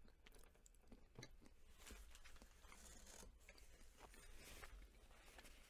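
Faint chewing and small wet mouth clicks from someone eating a milk chocolate candy with a liquid filling.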